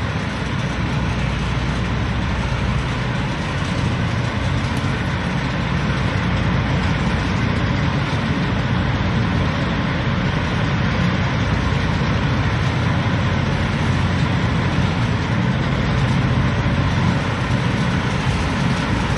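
Diesel engines of parked semi-trucks idling, a steady low rumble with a constant hiss over it.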